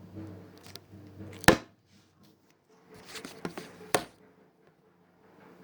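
The recording phone knocks hard against a surface as it is dropped, a single loud knock about one and a half seconds in. After a short near silence there is handling rustle and a second, smaller knock just before four seconds as it is picked up and set back.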